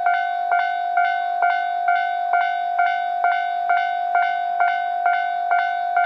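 Japanese railway level-crossing alarm ringing its repeated 'kan-kan' strikes, about two a second over a steady tone, warning of an approaching train. The train itself is not yet heard.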